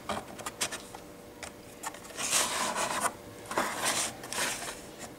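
A plastic model building shell being handled and slid on its plywood base: a few light clicks, then two rubbing scrapes of about a second each.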